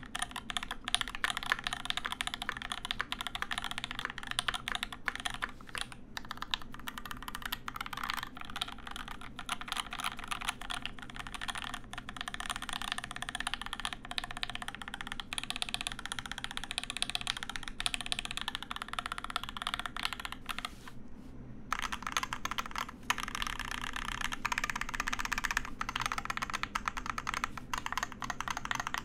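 Continuous fast typing on a Volt-80 mechanical keyboard with Durock L7 linear switches, lubed with 205g0 and filmed, and Durock V2 stabilisers. There is a brief pause about three quarters of the way through. The builder hears it as a bit hollow but very smooth.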